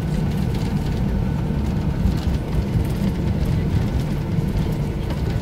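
Steady low rumble in the cabin of a Boeing 737-800 taxiing after landing, with a faint steady whine over it.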